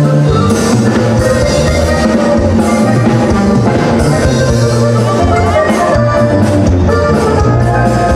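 Loud live band music through a concert PA system, with a steady drumbeat and a bass line.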